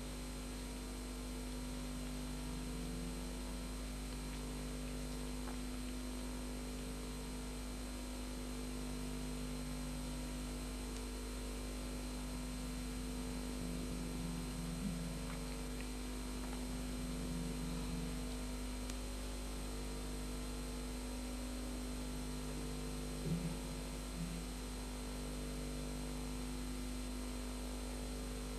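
Steady electrical mains hum with hiss on the recording. Fainter low tones come and go every few seconds over it.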